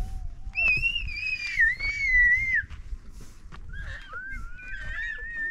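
Whistling in two long, high, wavering notes, each drawn out for about two seconds and sliding up and down a little in pitch. The first is the loudest.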